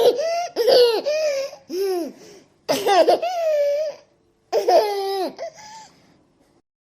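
A baby laughing in a run of high-pitched giggling bursts broken by short silent gaps, the last burst fading out about six seconds in.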